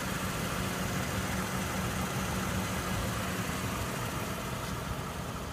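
A vehicle engine idling steadily, a low even hum under outdoor background hiss.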